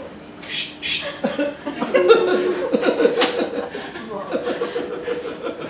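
People's voices speaking and chuckling, with short hissing speech sounds about half a second in and again about three seconds in.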